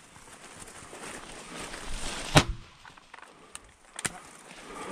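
A single sharp shotgun shot about halfway through, fired during a fox hunt, followed near the end by two faint knocks.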